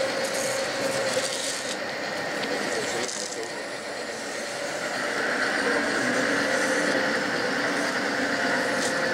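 Gauge 1 model train running on the layout's track, wheels rattling steadily over the rails, with faint held tones above the running noise.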